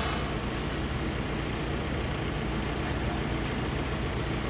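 Forklift engine idling with a steady low hum, and a couple of faint light clicks about three seconds in.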